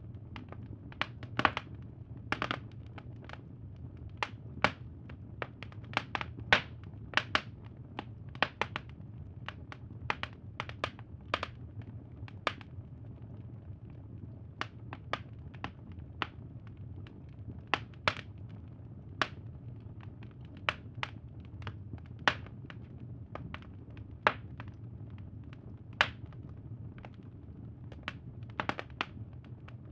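Crackling wood fire: irregular sharp pops and snaps, several a second at times, over a low steady rumble.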